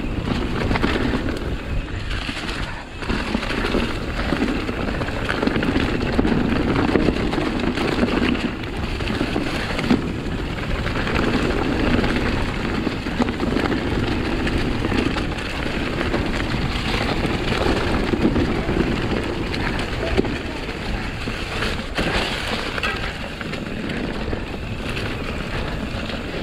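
Mountain bike rolling fast down a leafy, loose dirt trail: a steady rushing of tyres over leaves and dirt with a low rumble, and a couple of sharp knocks from the bike hitting bumps.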